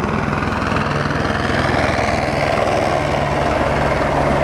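Helicopter flying past with a steady rotor chop and engine drone, growing a little louder toward the middle as it comes nearer.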